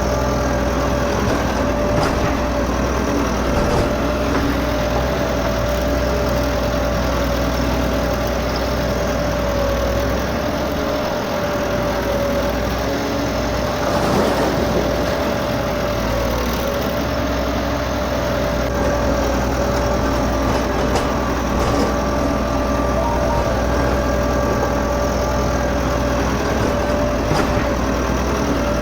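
Steady engine-like running at idle, with a constant mid-pitched hum and a low drone underneath.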